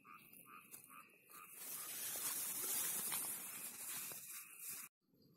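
Soft rustling hiss of movement through dry leaf litter, loudest through the middle seconds and cutting off suddenly near the end. A faint chirping pulse repeats about three times a second in the first second and a half.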